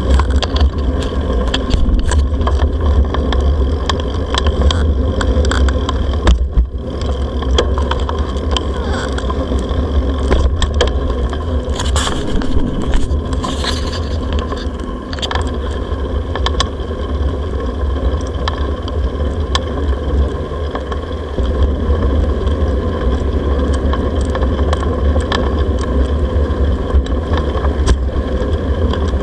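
A bicycle rolling along paved paths, heard through a camera riding on it: a steady low rumble with tyre noise and frequent small rattling clicks.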